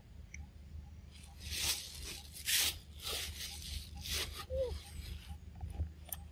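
A macaque tearing the peel off a ripe mango with its teeth and hands and chewing the juicy flesh. It makes a run of about six short, wet tearing and squishing noises, starting about a second in and lasting some three seconds.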